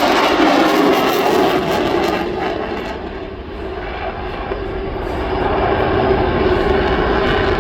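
Boeing F/A-18 Super Hornet's twin General Electric F414 turbofans, a loud continuous jet roar during a minimum radius turn. The roar fades about three seconds in, then builds again as the jet comes back around.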